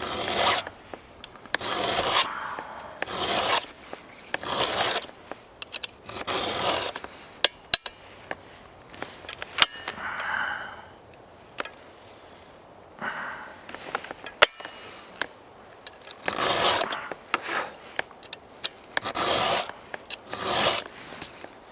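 A chainsaw file stroking across the cutter teeth of a chainsaw chain as it is sharpened: short rasping strokes, a few sharp clicks in a quieter pause midway, then more strokes near the end.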